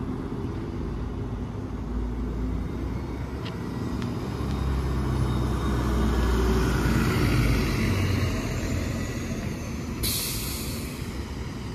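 City bus engine running close by, growing louder for a few seconds and then easing off, with a sharp hiss of air brakes for about a second near the end.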